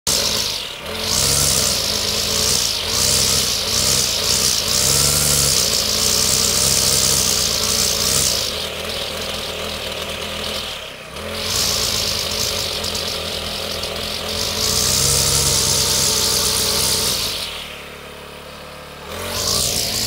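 Petrol brush cutter running, revving up and down again and again as it cuts weeds, with a hiss from the cutting head; it drops to idle for a moment near the end before revving up again.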